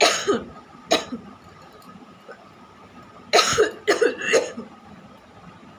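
A person coughing deliberately, as a performed cough sound: one cough at the start, another about a second in, then a quick run of three or four coughs a little past the middle.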